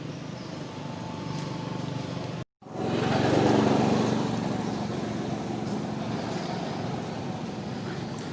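A steady motor hum, cut off by a moment of silence about two and a half seconds in, after which it comes back louder and then settles.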